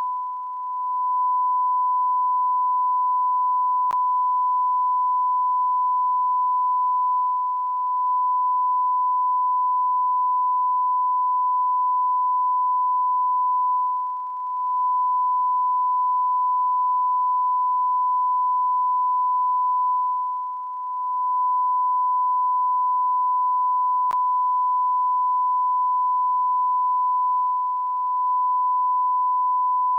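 A continuous, steady high-pitched beep: one pure tone held without a break. Its loudness dips briefly about every six or seven seconds.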